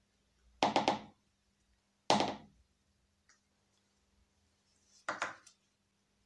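Spatula knocked against a small plastic cup: a quick run of three knocks about half a second in, a single knock about two seconds in, and another short run near the end.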